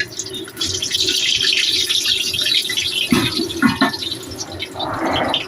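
Pork belly and tofu deep-frying in hot oil in an uncovered pan: a steady crackling sizzle, with a few knocks about three seconds in.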